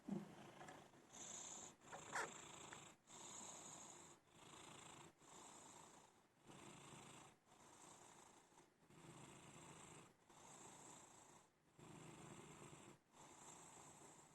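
Faint, steady snoring from a sleeping pet, one snore on each breath about once a second, with a slightly louder snort about two seconds in.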